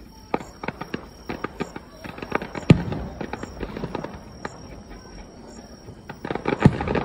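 Aerial fireworks bursting at a display: a run of sharp cracks and pops, with the two loudest bangs about three seconds in and near the end.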